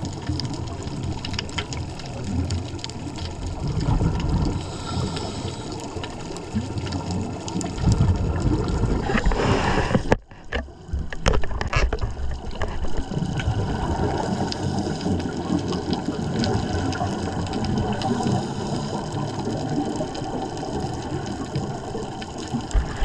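Underwater rushing and bubbling water on a diver's camera, surging in waves and dropping out briefly about ten seconds in.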